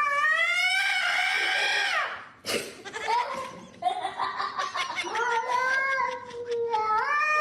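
A cat yowling in long drawn-out calls: one of about two seconds that rises then falls, then a longer wavering one, and a third beginning near the end.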